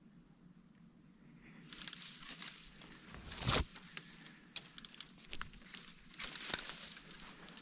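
Footsteps and the rustle of leaves and branches brushing past a head-mounted camera as a person pushes through dense undergrowth, starting about a second and a half in. It is irregular, with small snaps of twigs and one louder brush about three and a half seconds in.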